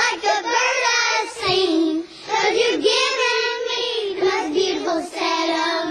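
A high, child-like voice singing a melody in held, gliding notes without clear words, in phrases broken by short breaths, over quiet backing music.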